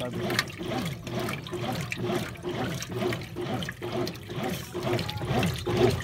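Brastemp Clean BWC11 top-loading washing machine agitating during a rinse: water sloshing and churning with the clothes as the agitator swings back and forth, in a steady repeating rhythm.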